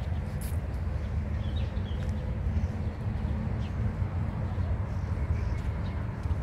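Outdoor park ambience: a steady low rumble of wind on the microphone, with a few faint bird calls over it.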